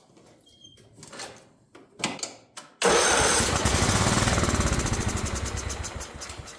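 Craftsman riding mower engine cranked on a shot of carb cleaner in the open intake: it catches about three seconds in and runs fast with an even rapid pulse. It fades as it dies out after a few seconds, because it has no gasoline in it.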